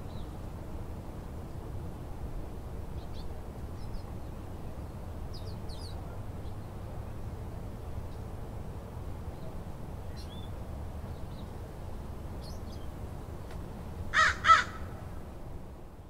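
Suburban garden ambience: a steady low hum of the town, with faint high bird chirps now and then and two loud bird calls close together near the end.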